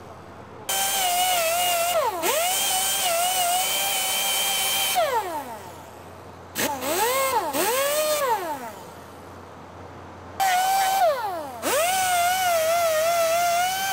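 Air-powered die grinder with a small abrasive sanding disc, whining at high speed as it sands a body panel. It starts up three times, its pitch dipping briefly when it bites into the surface, and twice winds down to a stop when the trigger is released.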